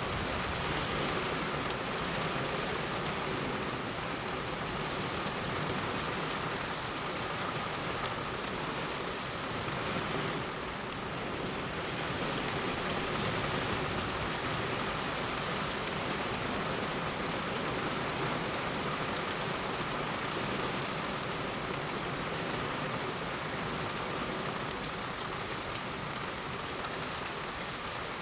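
Heavy rain pouring steadily onto a road: a dense, even hiss of drops with no thunder.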